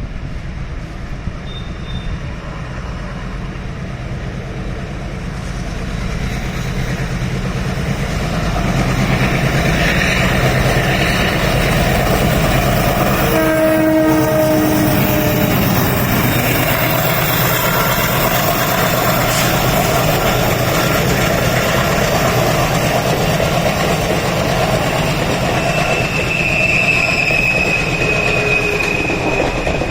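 WDM3A ALCO diesel locomotive approaching and running past with a steady low engine rumble, getting louder over the first several seconds, with wheels clattering over the rails. Its horn sounds about halfway through: short blasts, then a longer one. A high steady tone comes in near the end.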